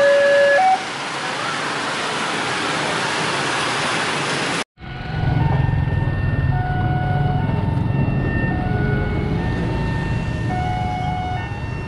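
A railway level-crossing warning alarm sounding its two alternating tones, stopping about a second in and leaving motorbike and road traffic noise. After a sudden break, another crossing's alarm sounds in scattered tones over a low hum as its barrier arm lowers.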